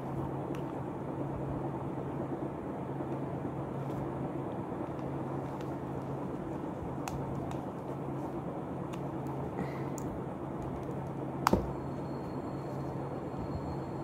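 Small clicks and scrapes of a pointed tool prying at the plastic cover of a relay, with one sharp snap about three-quarters of the way through, over a steady low hum.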